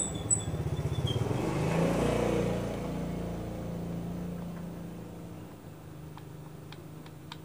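A motor vehicle's engine goes by, with a fast low pulsing at first, growing loudest about two seconds in and then fading away.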